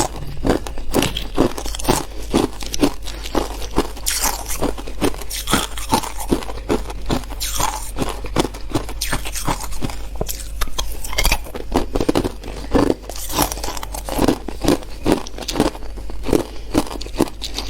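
Hard clear ice being bitten and chewed close to the microphone: a steady run of loud, sharp crunches, two to three a second.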